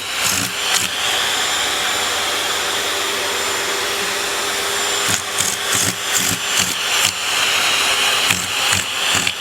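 Vacuum cleaner running with a steady whooshing hiss, broken by short knocks and bumps in the first second and again from about five seconds in.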